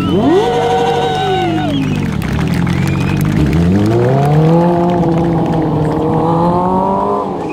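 Stunt sportbike's engine revving hard. It jumps sharply in revs, holds briefly and falls away. About three seconds in it climbs again and is held high under load as the bike rides off on a wheelie, then shuts off abruptly near the end.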